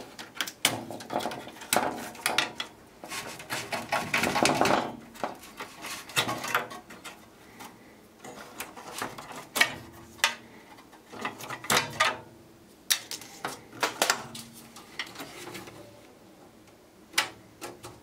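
Irregular clicks, knocks and clattering as circuit boards, ribbon-cable connectors and the sheet-metal cabinet of a key telephone system are handled. There is a denser run of rattling about three to five seconds in, and the knocks thin out toward the end.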